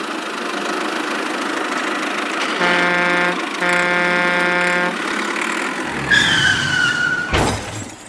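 Cartoon vehicle sound effects: an engine running steadily, then two long horn honks, the second longer than the first. About six seconds in comes a slowly falling whistle, then a short sweep near the end.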